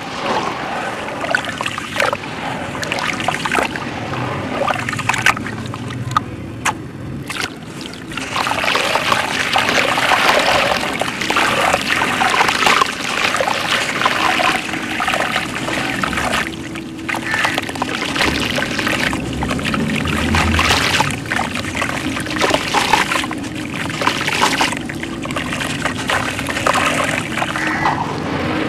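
Hands sloshing and squelching through muddy sand-and-water slurry in a plastic tub, with continuous splashing and dripping as wet sand is squeezed and lifted out. It gets louder from about eight seconds in.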